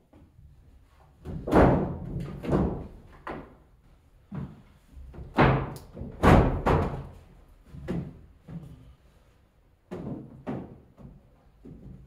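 Light sheet-metal HVAC box being pushed and stepped down into its floor opening: an irregular series of thumps and bangs of thin metal flexing and knocking against the wood framing. The loudest knocks come about one and a half seconds in and again around five to six seconds in.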